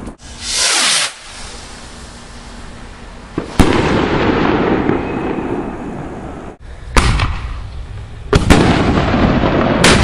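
Consumer fireworks going off: a hissing burst lasting about a second near the start, then four sharp bangs over the last six seconds, each trailing into crackle and rumble.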